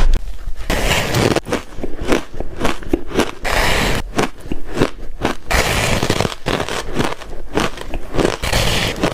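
Ice being bitten and crunched close to the microphone: a dense, uneven run of sharp crunches, with squeaky, crackling stretches as the ice is ground between the teeth.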